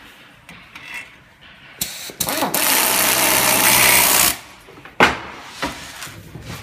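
Electric drill-driver driving a screw into an auditorium chair's side frame, running for about two seconds. A single sharp knock follows about a second after it stops.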